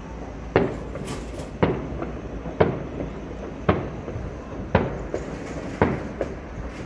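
Celebratory gunfire into the air: seven sharp shots at a steady pace of about one a second, each with an echoing tail, and a few fainter pops between them.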